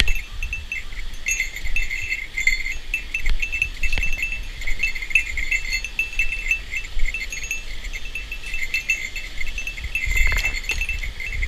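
Many short, high-pitched chirping trills from small creatures along the stream, repeating over and over, over a steady low rumble, with a brief knock a little before the end.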